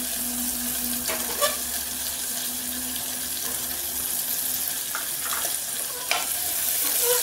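Potatoes and peas sizzling steadily as they fry in oil in an open pressure cooker, with a few light knocks; about six seconds in, a spatula starts stirring them against the metal pot.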